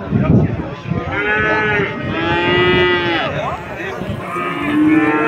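Cattle mooing: a few long, drawn-out moos, one ending in a falling slide, over the hubbub of a crowd.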